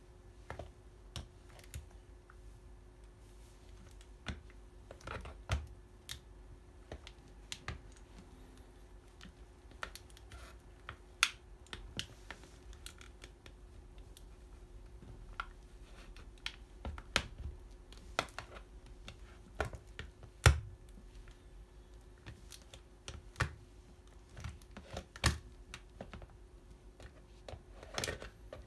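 Plastic calculator clicking and cracking under the metal pins of Asics track spikes as the wearer shifts weight on it: irregular sharp clicks and snaps, a few much louder than the rest, as the spikes dig into and mark the plastic casing and keys.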